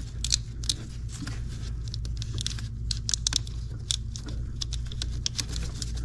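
Gloved hands handling wiring and hoses at a truck's engine-mounted vacuum pump: a string of small, irregular clicks and rustles over a steady low hum.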